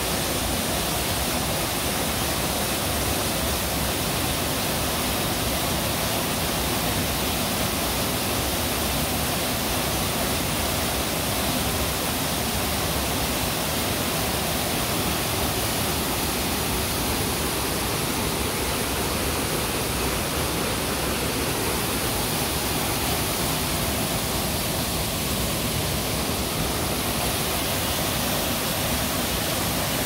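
Small waterfall spilling over a rock ledge into a pool: a steady, even rush of falling water.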